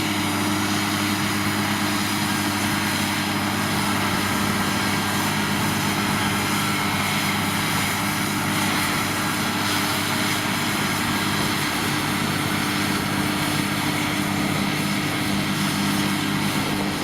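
New Holland tractor's diesel engine running steadily at constant revs, as when pulling a plough, with no change in pitch or loudness.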